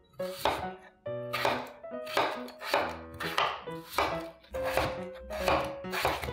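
Knife chopping food on a cutting board: sharp, evenly paced strokes, about three every two seconds.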